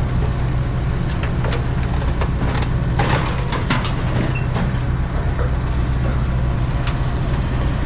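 A large engine running steadily at low speed, with scattered metal clanks and clicks as the riding mower is lifted and lowered off the trailer.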